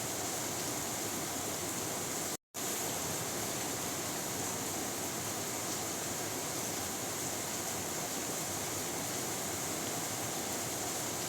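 Steady heavy rain, an even hiss with no thunder heard, cutting out completely for a split second about two and a half seconds in.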